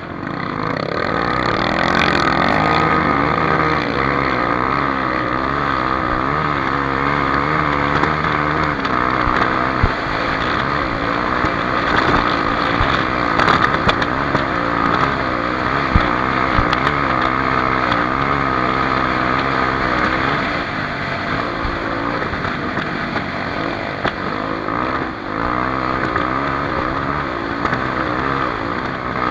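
Honda XR 250 Tornado's single-cylinder four-stroke engine running while being ridden, its pitch rising and falling over and over with the throttle.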